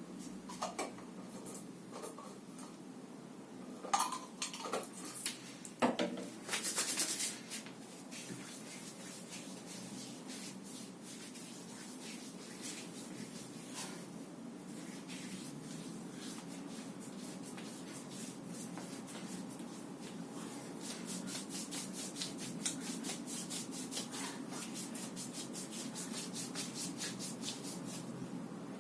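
Hands rubbing over skin in a massage: steady rubbing strokes that get faster and more regular later on, at about five a second. A few sharp clicks come in the first several seconds.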